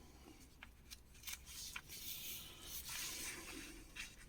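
Faint handling of the glossy pages of an old magazine: a few small ticks, then a soft paper rustle about three seconds in as a page is turned.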